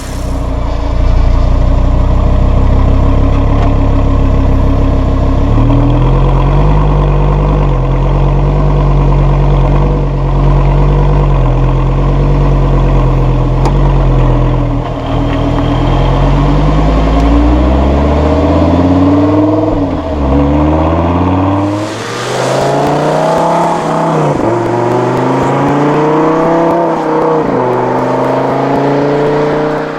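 Lamborghini Gallardo LP560-4's 5.2-litre V10 exhaust, its active exhaust valves open in Sport mode. It runs at a fairly steady pitch at first, then from about halfway accelerates hard in rising sweeps, each broken by a short dip as the E-Gear transmission shifts up.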